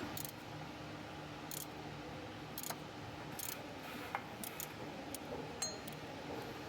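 Scattered sharp metallic clicks and clinks of hand tools at work, about ten at irregular intervals, over a steady low hum.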